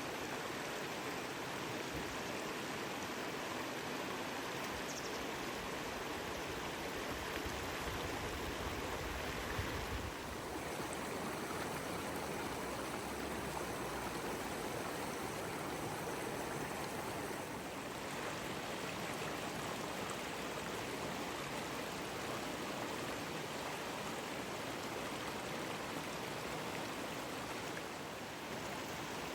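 Seomjin River water flowing: a steady rush of running water, even throughout.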